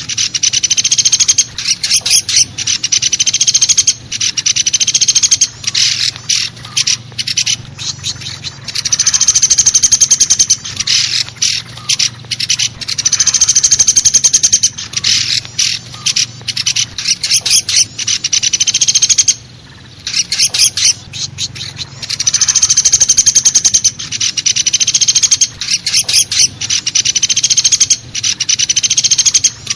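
Recorded woodpecker (pelatuk besi) calls played as a bird lure: loud, fast rattling trills repeating in bouts of one to two seconds, with a short break about twenty seconds in.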